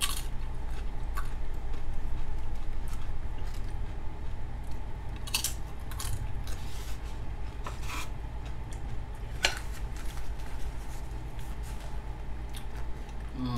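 Tortilla chip with dip being bitten and chewed close to the microphone: scattered crunches and sharp clicks, with clinks of a dish and utensil, over a steady low hum.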